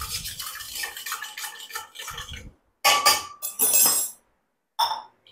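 Metal spoon stirring and clinking inside a small steel tumbler while lemon water is mixed: a quick run of rattling clinks, then after a short pause a few louder, ringing clanks of steel utensils, with one more near the end.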